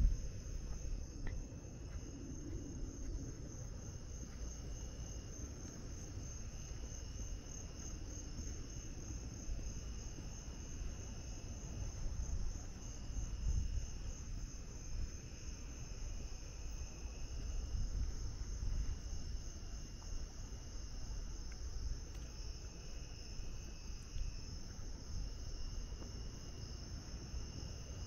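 Night chorus of crickets: a continuous, fast-pulsing high trill, with a second, lower insect call coming in phrases of a second or two every few seconds. A low rumble runs underneath.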